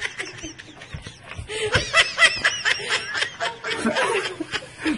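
A person laughing at a cat with a box stuck on its head, in a run of short, high-pitched bursts.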